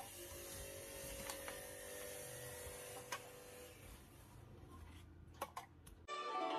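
Faint room noise with a few light clicks and taps, and a faint steady hum in the first half. Plucked-string background music starts abruptly near the end.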